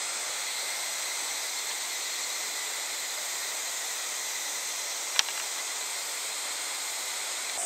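A steady, high-pitched chorus of insects shrilling in the trees and undergrowth. A single sharp click comes about five seconds in.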